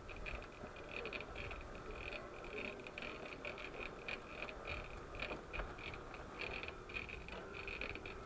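A wheel squeaking over and over, short high squeaks several times a second, like an old bicycle. The squeak persists even though the wheel's gearbox has already been greased.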